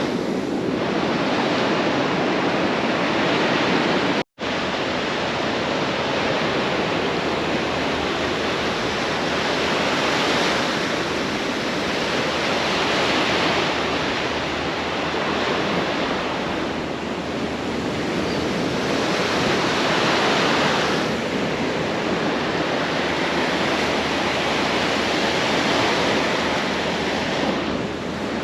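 Ocean surf washing onto a beach: a steady rush of noise that swells and eases every few seconds, cutting out briefly once about four seconds in.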